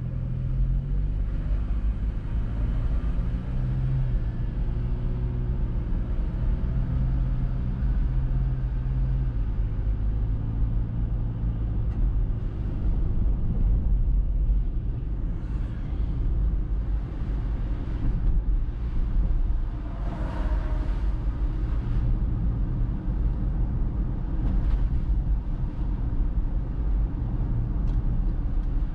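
Car driving on a wet road: a steady low engine and road rumble with tyre hiss. The engine note steps up as the car pulls away from a junction, then settles. A few brief louder swells come from traffic passing in the second half.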